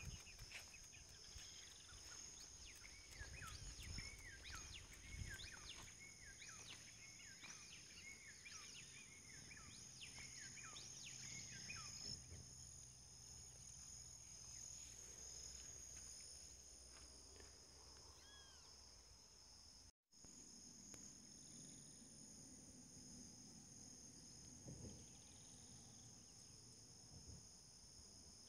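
Faint rural ambience: a steady high-pitched drone of insects, with a bird calling in a fast series of repeated arching notes for the first ten seconds or so, then only an occasional call.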